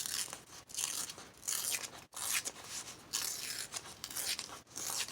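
Paper being torn by hand in a series of short, noisy rips.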